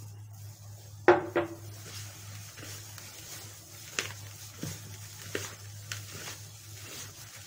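Gloved hands rubbing and squeezing shredded kunafa dough with melted ghee in a plastic bowl, working the ghee in until the dough absorbs it. The rubbing gives scattered soft rustles and sharp knocks, the loudest about a second in, over a steady low hum.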